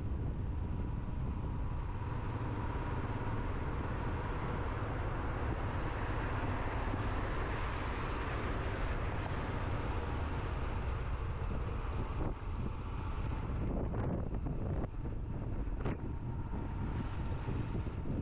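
Wind rushing over the microphone of a moving motorcycle, a steady low rumble with hiss above it, broken by a few brief knocks about two-thirds of the way through.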